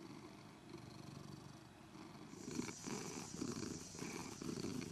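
Domestic cat purring steadily, the purr growing louder about halfway through.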